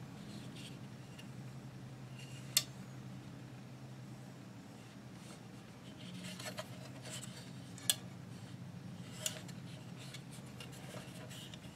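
Quiet handling of an SKS rifle with a wooden stock and a steel underfolder stock: light rubbing and three sharp clicks spread apart, over a steady low hum.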